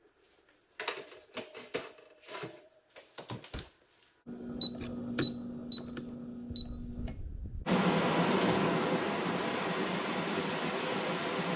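Scattered clicks and clatter of oven door and tray handling, then an electric range's touch control panel beeping four times over a low hum as a cooking time is keyed in. A steady rushing noise takes over for the last few seconds as the tray goes into the oven.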